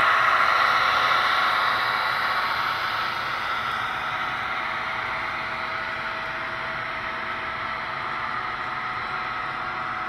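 HO scale model freight train rolling past on its track, making a steady whirring rattle of wheels on rails with a faint motor hum. The sound fades over the first few seconds as the locomotives move off, then holds steady as the freight cars roll by.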